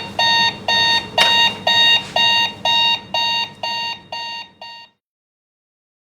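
Raketa alarm clock sounding its alarm: about ten short, evenly spaced bursts of a pitched tone, about two a second. They grow fainter and stop about five seconds in.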